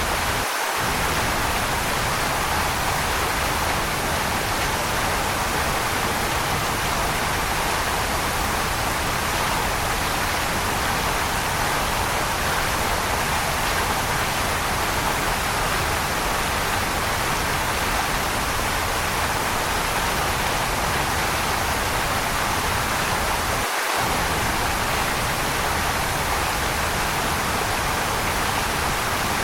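Waterfall: a steady, even rush of falling water. The low rumble cuts out for an instant twice, once near the start and once near the end.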